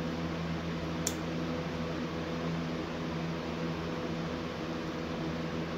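Steady low machine hum, such as a fan or appliance running, with one small sharp click about a second in.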